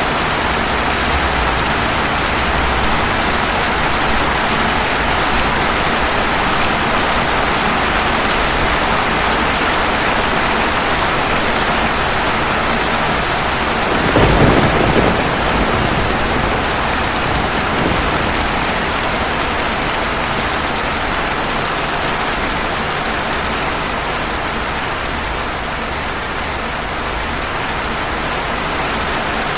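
Steady heavy rain falling on pavement, with a single short rumble of thunder about halfway through that fades over a couple of seconds.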